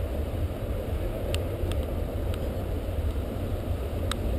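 Wind buffeting the microphone outdoors, a steady low rumble, with a few faint sharp clicks scattered through it.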